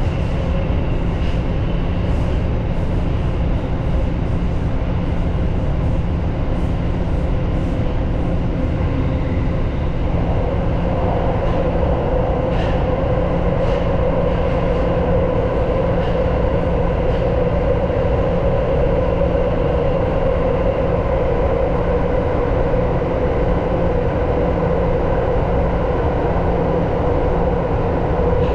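Tokyo Metro Marunouchi Line subway train running through a tunnel, heard from the cab: a steady rumble of wheels on rail, with a hum that grows louder about ten seconds in.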